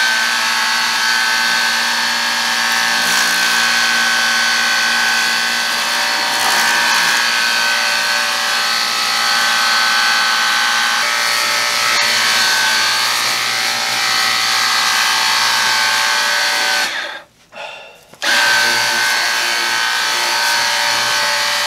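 Battery-powered portable power washer running on its turbo setting: a steady high-pitched motor whine with the hiss of the water spray. About three-quarters of the way through it cuts out for about a second, then starts again.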